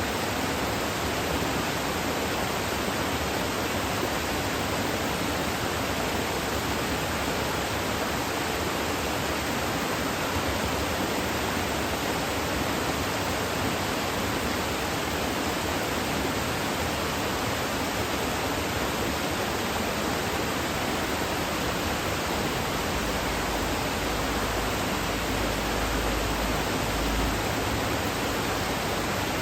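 Kuzuryu Falls waterfall: steady rushing of falling water, an even hiss that never breaks. A low rumble swells for a few seconds near the end.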